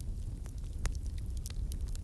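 Wood fire crackling, with scattered sharp pops and snaps, several a second, over a steady low rumble.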